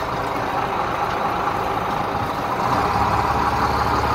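Fishing boat's engine running steadily, a continuous hum and rumble. A deeper low drone swells in about two-thirds of the way through.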